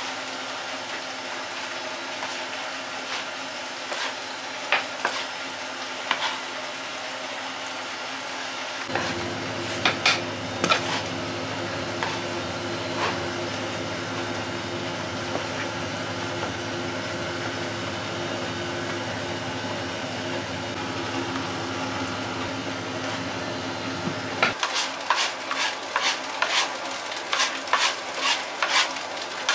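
Flour-dusted chocolate dough being worked by hand and with a metal dough scraper on a floured worktable: a steady rustling hiss with scattered taps and scrapes. A low hum runs through the middle. Near the end comes a quick run of thuds as the dough is kneaded against the table, about three or four a second.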